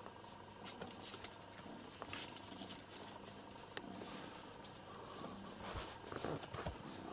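Faint scattered rustling and light taps of a kitten playing with a mouse, with a few louder bumps about six seconds in.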